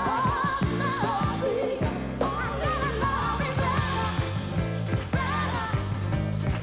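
A vocal group of men and women singing a pop song together with live band accompaniment: voices with heavy vibrato over a bass line and a steady drum beat.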